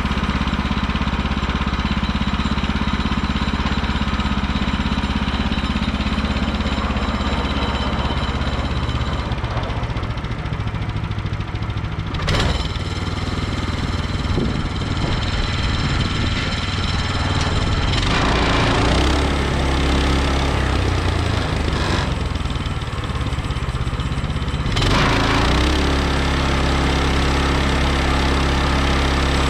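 Petrol engine of a Woodland Mills HM130 portable sawmill running steadily throughout. A sharp click comes near the middle, and the engine's note shifts a few seconds later and again near the end.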